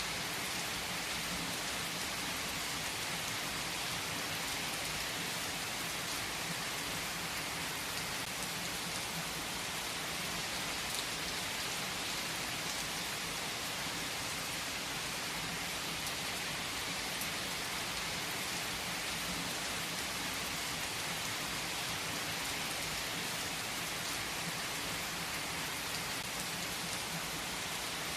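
Steady rain falling, an even hiss with a few single drops ticking out above it.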